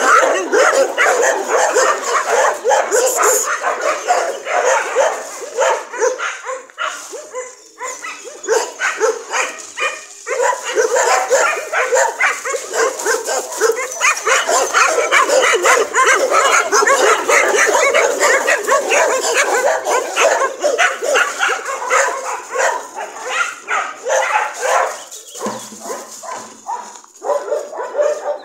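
Many dogs barking and yipping almost without pause, the barks overlapping one another, with a few brief lulls.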